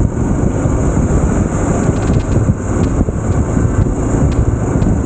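Motorcycle riding at speed: a steady rush of wind on the microphone over the bike's engine noise.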